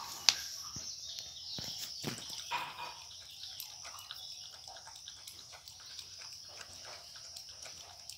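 Dog lapping milk from a small bowl: a run of quick, wet clicks of the tongue, thickest in the first few seconds and sparser after.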